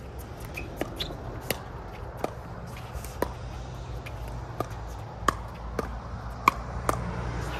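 A pickleball doubles rally: about a dozen sharp pocks, one to two a second, as paddles strike the plastic ball and the ball bounces on the hard court.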